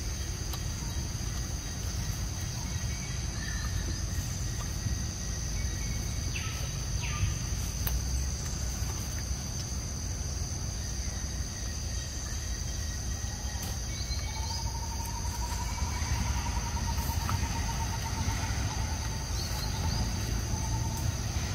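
Steady high-pitched drone of insects in forest undergrowth over a low rumble. A fast, even trill around the middle pitch joins about two-thirds of the way in and runs nearly to the end, with a few short chirps scattered before it.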